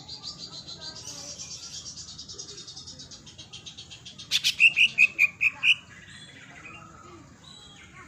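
Green leafbird (cucak ijo) singing: a fast, high chattering trill for about the first half, then a loud run of about six clear repeated notes, followed by softer, varied phrases.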